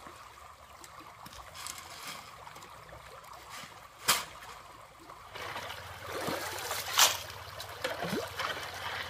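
Shallow stream running steadily, with one sharp knock about four seconds in. From about halfway, a shovel scrapes stones and gravel from the streambed with repeated splashes, the loudest about seven seconds in.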